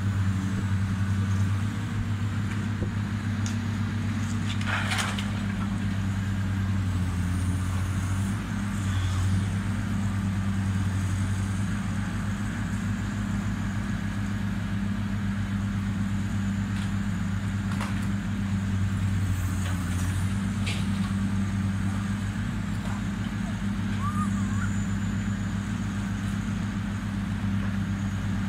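Diesel engine of heavy demolition machinery running steadily as a low drone that shifts a little in pitch now and then, with a few sharp knocks and clatters, the loudest about five seconds in.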